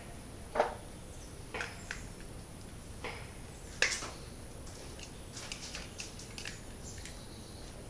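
Scattered small clicks and taps of parts and wires being handled while a shop light fixture is wired up, with two sharper knocks, one about half a second in and one just under four seconds in.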